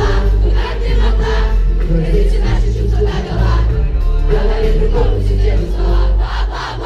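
Live pop song played loud through the concert sound system with heavy bass, the audience singing along.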